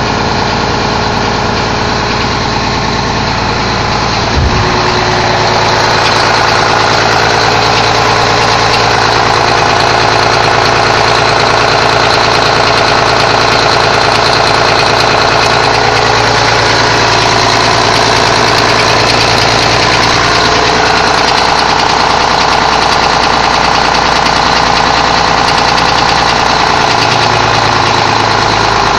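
Renault Magnum E-tech 400.19 truck's diesel engine idling with a rattling knock. The owner says it comes and goes at 800–1000 rpm regardless of temperature or load, even though compression is as new, the fuel system has been serviced and the valves adjusted.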